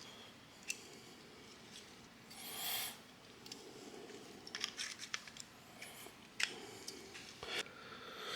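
Faint handling noises of small hardware: scattered light clicks and taps, a few in quick clusters, with a brief rustle a little over two seconds in, as extruder parts are handled and fitted.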